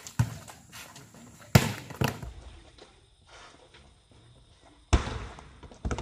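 A volleyball struck repeatedly by players' hands and forearms in a rally: about five sharp slaps, several close together early on, then a quiet gap before two more near the end.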